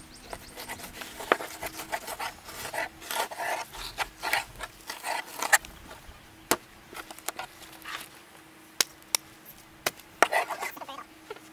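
A knife cutting through bluefish on a plastic cutting board, with scraping strokes and small knocks for the first half, then a few scattered sharp clicks and a short flurry of scraping near the end.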